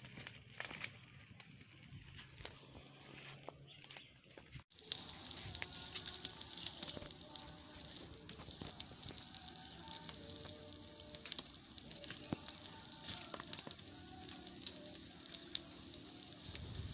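Open wood fire crackling and sizzling as a goat head and goat legs roast over the flames on a wire grill, with many short sharp cracks over a steady hiss. The sound breaks off briefly about five seconds in.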